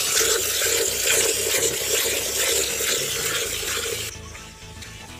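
Hand-milking into a steel bucket: jets of milk hissing into the froth, squirt after squirt. The sound drops away sharply about four seconds in.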